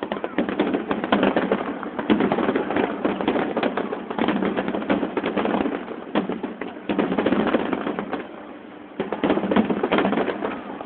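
Fireworks finale: a rapid, dense run of bangs and crackles from aerial shells bursting, easing briefly about six seconds in and again around eight to nine seconds. Heard through a phone's microphone, thin, with no deep boom.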